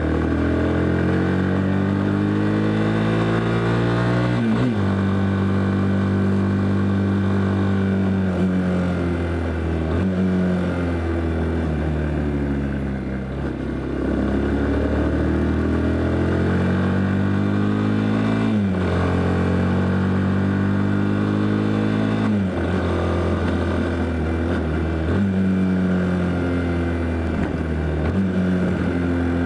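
Yamaha Fazer motorcycle engine under way, its pitch climbing as it accelerates and dropping back several times as it changes gear or rolls off. The engine runs without any odd noise, as the title claims.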